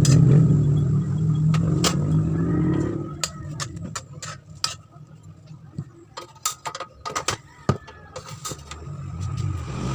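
A loud low rumble for the first three seconds, fading out. Then a pan of noodles and egg bubbling on the stove, with scattered small clicks and pops.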